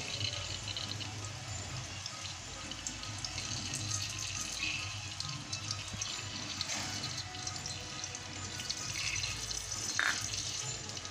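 Mustard oil heating in a pressure cooker: a steady hiss with faint, scattered crackles as the oil comes up to temperature.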